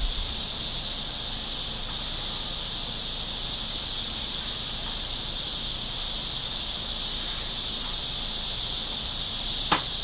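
A steady, high-pitched chorus of insects, droning on without a break, with a single sharp click near the end.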